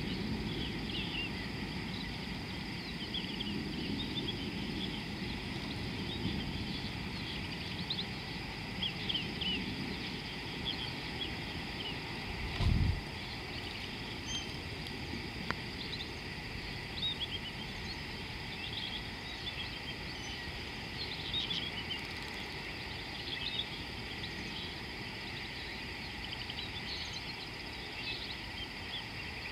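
Bush soundscape: many small birds chirping and calling over a steady high hiss. There is a brief low thump about thirteen seconds in.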